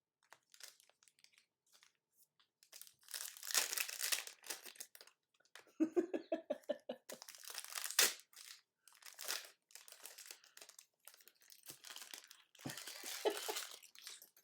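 Plastic card-box and pack wrapping being crinkled and torn open in several irregular bursts, the handling of a trading-card box break.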